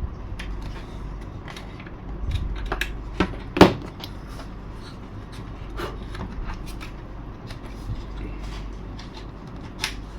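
Small clicks, taps and scrapes of hand work on a model airplane's cockpit while a latch is fitted into its slot, with one sharper knock about three and a half seconds in, over a low steady hum.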